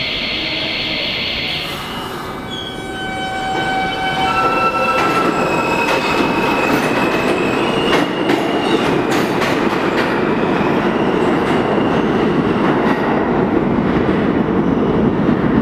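R160 subway train pulling out of the station. Its propulsion whines in a series of tones that step up in pitch as it accelerates. Then a loud rumble of wheels on rail builds, with sharp clacks over the rail joints.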